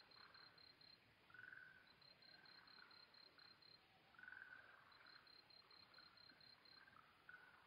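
Faint night chorus of crickets and frogs. An insect repeats trains of evenly spaced high chirps, about five a second. A lower frog call comes in about a second and a half in and again after four seconds.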